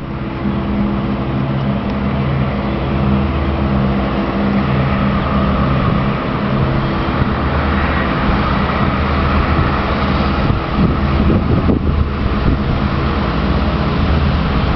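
Steady low engine rumble, a constant hum with several low tones and a rougher stretch about ten to twelve seconds in.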